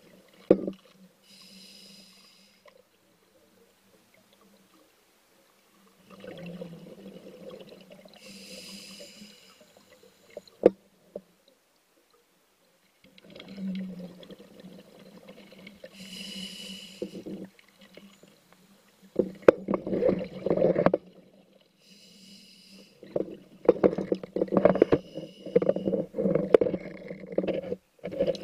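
Scuba diver breathing on a regulator underwater: four hissing inhalations, each followed by a burst of exhaled bubbles, the bubbling louder and choppier in the last third. Two sharp knocks, about half a second in and about ten seconds in.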